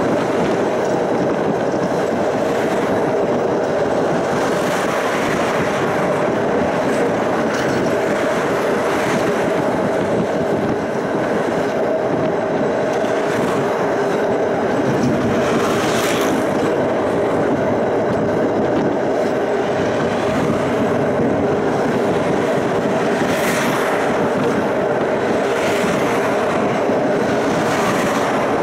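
Tram running steadily at speed, heard from inside the car: a continuous rumble of wheels on rail under a faint steady hum, with a few short clicks from the track.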